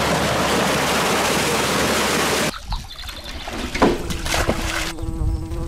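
A loud, steady rushing noise that cuts off abruptly after about two and a half seconds. Splashes of large carp being tossed into shallow lake water follow. A steady low hum starts near the end.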